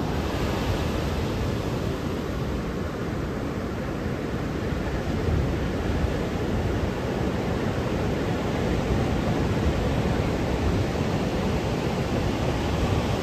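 Ocean surf breaking on a sandy beach: a steady, unbroken rush of waves and foaming water.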